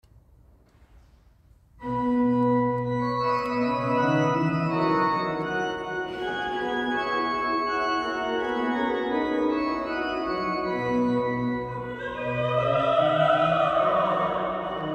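Pipe organ starts playing about two seconds in, with sustained chords and moving lines. Near the end a soprano voice enters, singing with vibrato.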